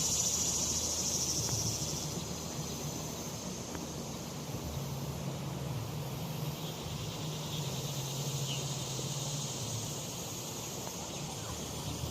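Insects calling outdoors in summer: a steady high-pitched buzz that fades about two seconds in and returns faintly later, over a low steady rumble.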